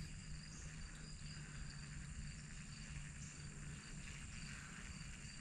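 Faint, steady chorus of insects such as crickets in marsh vegetation, with a low steady hum beneath it.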